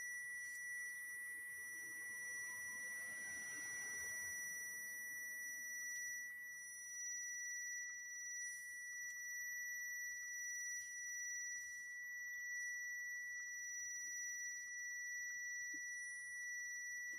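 A steady high-pitched electronic tone, unbroken and level in pitch, with faint short ticks now and then.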